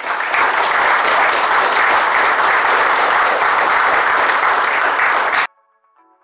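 Audience applauding, loud and steady, cut off abruptly about five and a half seconds in; faint music with plucked notes follows.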